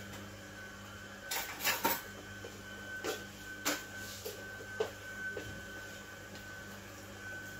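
Scattered short clicks and knocks of a spoon and kitchen things being handled, over a steady low hum.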